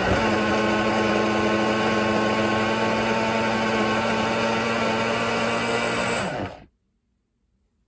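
Hamilton Beach single-serve blender running steadily as it blends banana and mango, with a steady motor hum that cuts off abruptly about six and a half seconds in.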